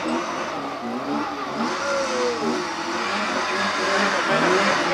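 Rally car's engine revving hard, its pitch rising and falling, with a clear drop in pitch about two seconds in, over a steady hiss of tyre and road noise.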